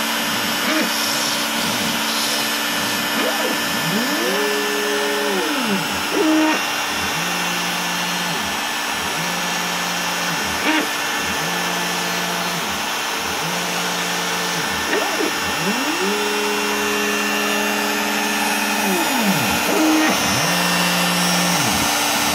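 Bosch Colt trim router running steadily with a 1/32-inch single-flute bit, cutting foam board on an OX CNC machine. Over it the machine's stepper motors hum in pitched tones that rise, hold and fall as the axes speed up, travel and slow down between moves, with longer sweeps about four seconds in and again past the middle.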